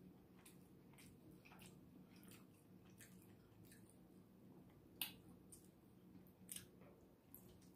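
Faint chewing and wet mouth clicks from someone eating rotisserie chicken, with a sharper click about five seconds in and another about a second and a half later.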